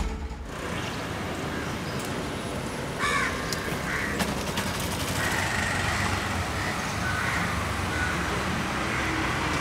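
Street ambience: road traffic and a motorcycle engine running, with crows cawing a few times, the first about three seconds in.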